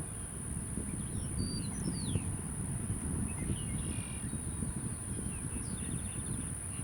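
Small birds chirping, with quick whistled sweeps and a short buzzy trill near the end, over a steady low wind rumble and a constant high-pitched hiss.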